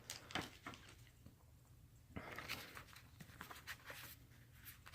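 Faint rustling and light clicks of trading cards being handled and slid against each other, with a soft patch of rustling about two seconds in.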